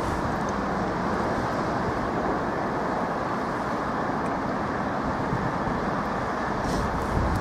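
Steady low rumble of a diesel locomotive running light, approaching slowly over the junction pointwork.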